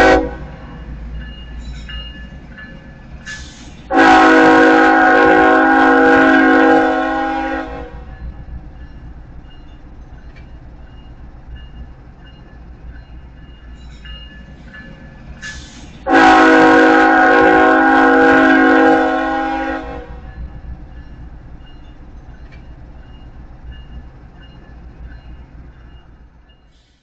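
Diesel locomotive air horn sounding a chord for a grade crossing: a brief toot at the start, another short toot about three and a half seconds in, then a long blast of about four seconds, and a second long blast about sixteen seconds in. A low rumble runs between the blasts and fades near the end.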